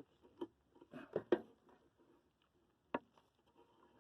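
Faint clicks and knocks of a hand wrench working on a stuck bolt on an old truck: a small cluster about a second in and one sharp click about three seconds in.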